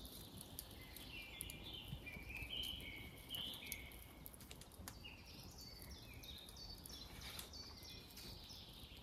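Faint birdsong: a bird sings runs of short, high, stepping notes over a quiet outdoor background, with a few light clicks.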